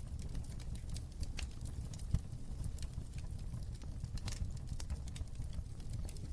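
Wood fire in a fireplace crackling: irregular sharp pops and snaps over a steady low rumble of the flames, with one louder pop about two seconds in.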